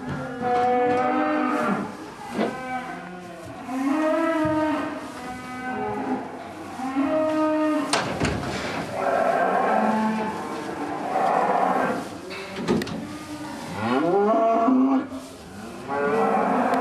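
Calves shut in a livestock transport truck bawling, one call after another with several voices overlapping. A sharp knock comes about halfway through.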